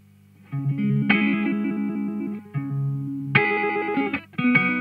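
Electric guitar played through an Old Blood Noise Endeavors Dweller phase repeater/delay pedal: after a near-quiet half second, a string of ringing chords, each held for about a second, with fresh ones coming in at irregular intervals.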